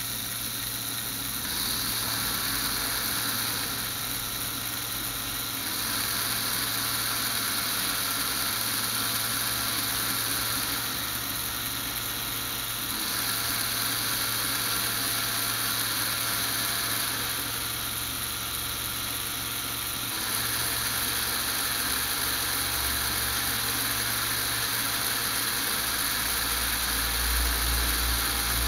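LEGO Technic gearbox run by electric motors: a steady whir of small motors and meshing plastic gears, its tone changing in steps every few seconds as the sliding selector shifts between gears. A deeper hum comes in near the end.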